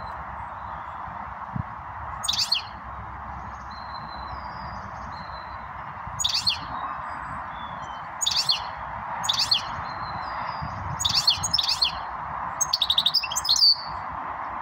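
Goldfinch calling in short bursts of sharp, twittering high notes, about seven times, with a quick run of notes near the end.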